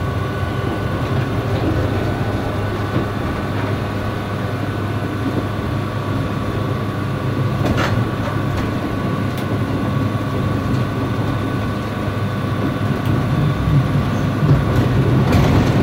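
Tram running on its rails: a steady rumble with a constant high hum over it, one sharp click about eight seconds in, getting a little louder near the end.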